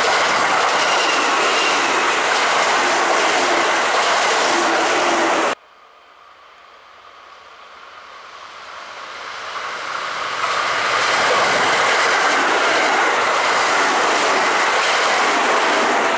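Kintetsu electric commuter train passing close by at speed. The sound cuts off abruptly about five and a half seconds in. A second train is then heard approaching, growing steadily louder over several seconds, and passing close by.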